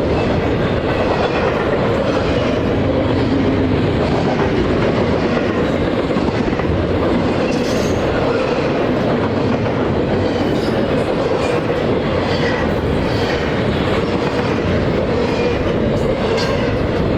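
Cars of a long freight train, most likely the NS 27A intermodal, rolling past steadily on the rails with a constant rumble and scattered faint clicks from the wheels.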